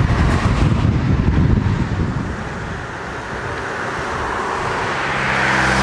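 Road traffic passing on a city street, with wind rumbling on the microphone for the first couple of seconds. Near the end a vehicle passes close, its engine hum and tyre noise swelling.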